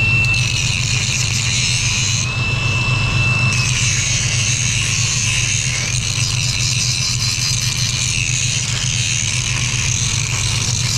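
Welding arc crackling and hissing steadily over a low, steady hum from the running welder, with a brief thin whistle at the start and again about two to three seconds in.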